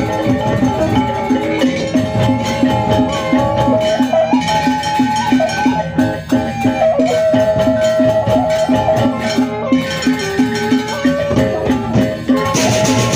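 Sasak gendang beleq ensemble playing: rows of small bronze kettle gongs struck with padded beaters, ringing over a steady, even beat.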